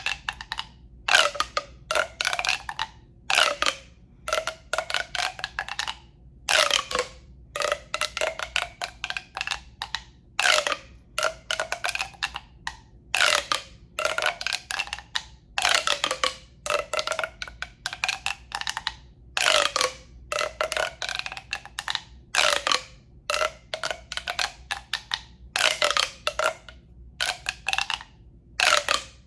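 Hollow tube handled to make relaxation sounds: quick strokes in clusters every second or two, each with a hollow ringing tone that rises in pitch.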